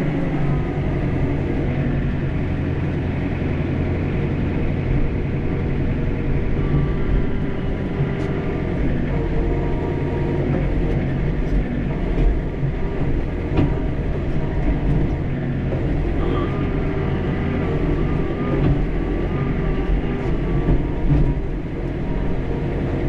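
John Deere 4066R compact tractor's diesel engine running steadily while working the log grapple, with a whine that shifts in pitch and a few short knocks along the way.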